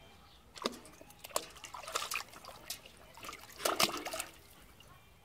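A dog splashing and snapping at the water in a plastic tub fed by a garden hose: irregular splashes and slurps, the loudest about four seconds in as it steps into the tub.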